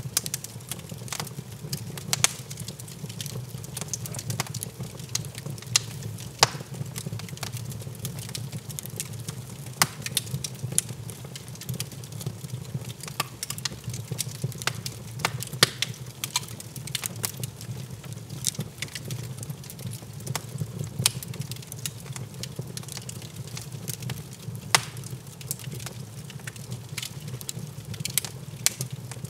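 Wood fire crackling in an open fireplace: irregular sharp pops and snaps over a steady low rumble.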